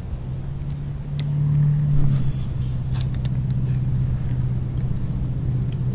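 A motor engine running steadily with a low hum, its pitch rising slightly about a second in, with a few faint clicks over it.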